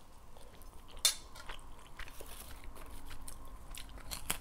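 Close-miked eating sounds: a fork clicks sharply against a plate about a second in, with small chewing and utensil clicks after, and a bite into a cracker near the end.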